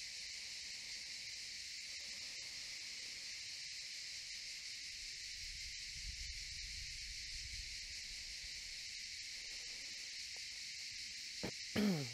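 Steady chorus of cicadas, an even high-pitched hiss that does not let up. Near the end a brief, louder sound falls in pitch.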